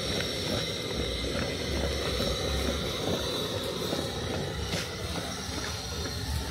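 Steady hiss and low rumble of a pot of rice-and-millet fufu cooking on the fire, with a few light knocks.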